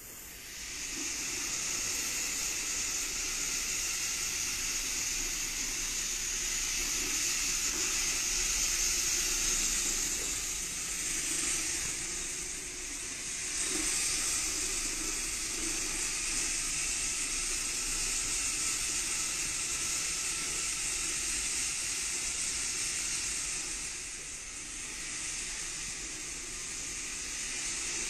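A steady hiss that runs on unbroken, easing slightly a couple of times.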